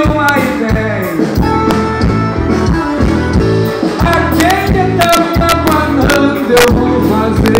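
Live band music from the stage, with a steady beat and a voice singing over the instruments.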